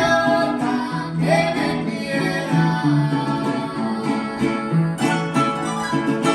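Music led by plucked guitar over a steady bass line, with a voice singing over it at moments.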